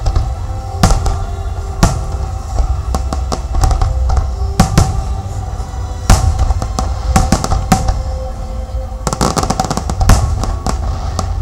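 Fireworks bursting overhead: single loud bangs a second or more apart, then a rapid crackling volley about nine seconds in, over music with sustained tones.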